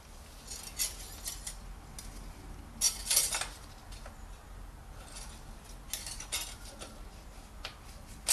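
Short metallic clinks and scrapes in a few separate bursts, the loudest about three seconds in: an engine oil dipstick being handled, wiped with a rag and slid in and out of its tube to check the oil level after a refill.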